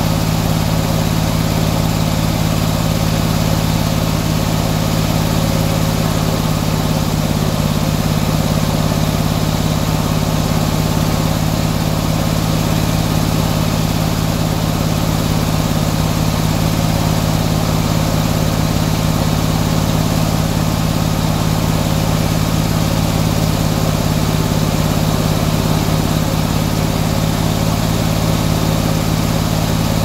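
Antique circular sawmill's engine running steadily at a constant pace, with no cut under way.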